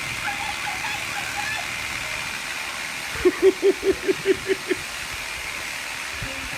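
Cordless reciprocating saw running steadily as it cuts into a tree trunk. About halfway through, a quick run of eight short, loud, low pulses comes at about five a second.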